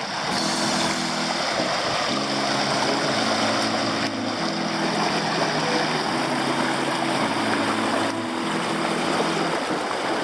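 Creek water rushing over rocks in a shallow riffle, with background music of sustained low chords that change about every two seconds.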